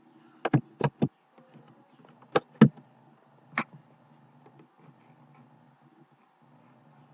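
Computer mouse clicking: about seven sharp clicks in the first four seconds, some in quick pairs, over a faint low hum.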